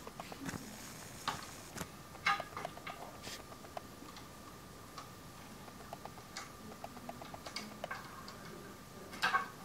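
Scattered faint clicks and ticks at irregular intervals over a faint steady high tone, with a louder cluster of clicks near the end.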